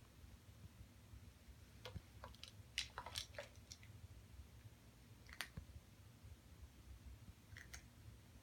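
Faint crunching and clicking from a cat knocking a Friskies treat-dispensing toy and eating the dry treats it lets out. A quick run of crunches comes about two seconds in, with a single click or crunch twice later.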